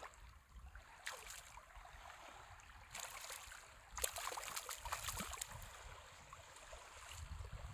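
Faint water sounds at the water's edge, with a few short splashes and a low rumble of wind on the microphone.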